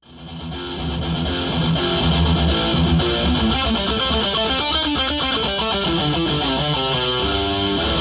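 Guitar music with electric guitar, starting abruptly out of silence.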